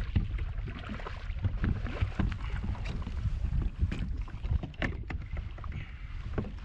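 Wind buffeting a GoPro's microphone on a kayak, an uneven low rumble, with scattered sharp knocks and clicks throughout.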